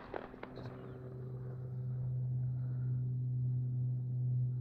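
A steady low-pitched hum that grows a little louder after the first second, with a few faint clicks near the start.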